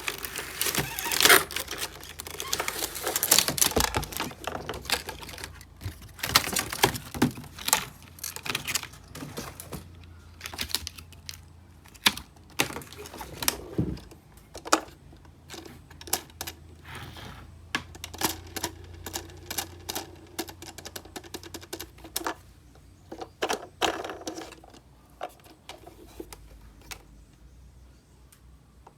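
Hands unpacking a plastic toy bus. Packaging rustles and crinkles for the first few seconds, then comes a long run of scattered sharp plastic clicks and taps that thin out toward the end.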